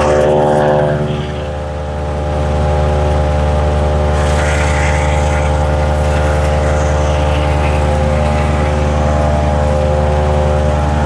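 MechMaxx 6-inch wood chipper's gasoline engine running steadily at a constant pitch, with a brief dip in level a second or so in.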